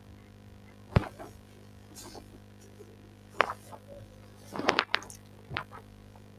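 A few scattered sharp clicks and knocks, the loudest a thump about a second in and a quick cluster of several a little past the middle, over a steady low hum.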